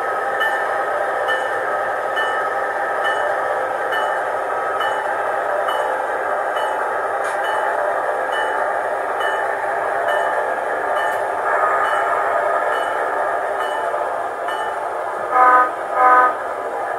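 Diesel engine sound of an ALCO C-630 from a Soundtraxx Tsunami decoder, played through the tiny speaker of an HO-scale model locomotive as it runs slowly, with a light tick about once a second. Near the end the horn gives two short blasts.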